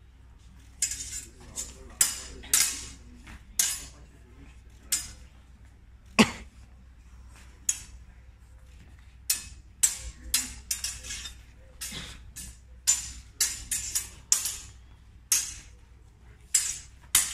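Steel sidesword blades clashing again and again in quick flurries: sharp, ringing metallic clinks. The loudest strike comes about six seconds in.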